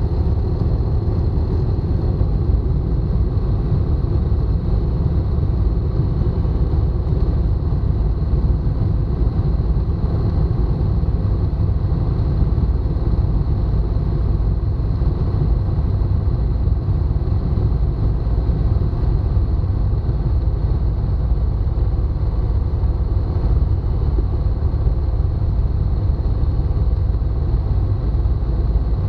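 Tecnam light aircraft's piston engine and propeller running at low power while the plane taxis slowly, heard from inside the cockpit as a steady, loud low rumble.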